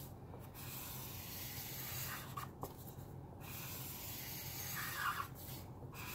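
Black Caliart alcohol marker's felt nib rubbing across printer paper in long back-and-forth strokes, a scratchy hiss that stops briefly twice, about halfway through and near the end, as the nib lifts.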